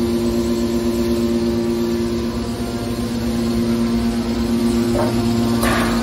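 Hydraulic power unit of a scrap-metal baler running: an electric motor driving the hydraulic pump gives a loud, steady hum with a constant two-note whine. Two short bursts of noise come near the end, the second louder.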